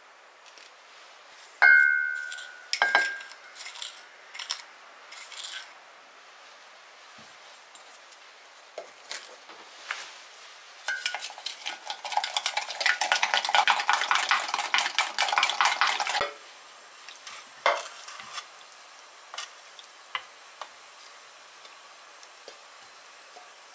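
Spoon clinking against a glass Pyrex measuring jug. One loud ringing clink comes near the start, then a few seconds of rapid clicking as a thick sauce is stirred in the jug, then a few scattered taps.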